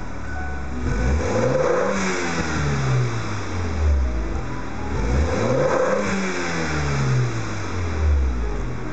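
BMW F10 523i's N20 turbocharged 2.0-litre four-cylinder engine revved twice through an ARQRAY TitanTail aftermarket exhaust with the car standing still. Each rev climbs for about a second and a half, then falls back slowly toward idle.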